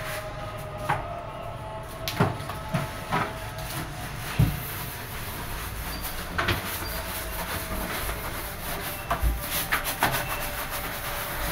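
Irregular knocks and clatters of kitchen cleaning work, as household items are handled and a kitchen cabinet is opened, over a faint steady hum.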